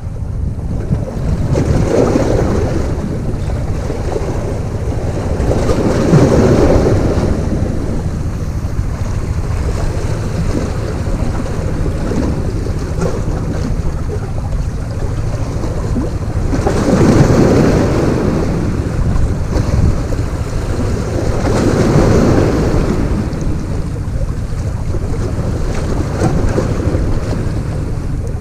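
Sea waves washing against the rocks, surging and ebbing about four times, with wind rumbling on the microphone throughout.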